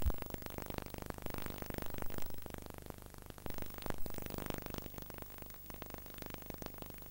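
Blank videotape noise between two recordings: hiss and crackle with scattered clicks over a low hum, slowly getting quieter.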